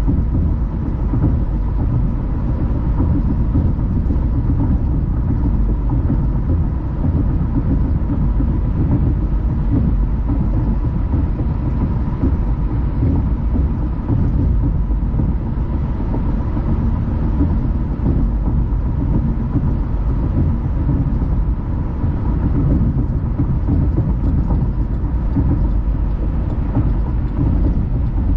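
A car driving at steady speed: a continuous low road and tyre rumble with engine noise that holds steady throughout.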